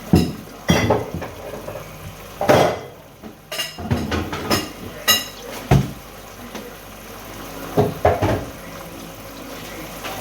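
Kitchenware being handled: plates, pots and utensils set down and knocked together in a series of about ten sharp clinks and clatters, some ringing like metal or china.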